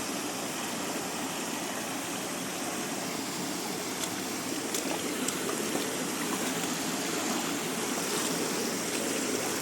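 Creek water flowing steadily, with a few faint ticks about halfway through.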